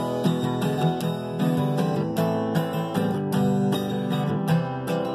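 Steel-string acoustic guitar strummed in an even rhythm, about three or four strums a second, the chords ringing between strokes.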